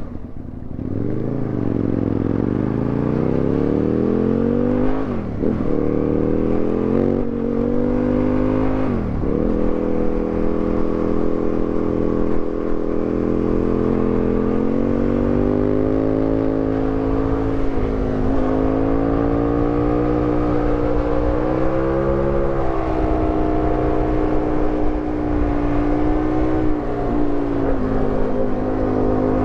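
Onboard sound of an Aprilia Tuono 1000 R's V-twin engine under way, its pitch rising and falling with the throttle. Quick dips in pitch at gear changes, sharpest about five and nine seconds in.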